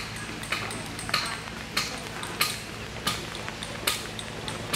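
Hammer tapping on a chisel as stone is carved: sharp, ringing strikes in an even rhythm, about three every two seconds.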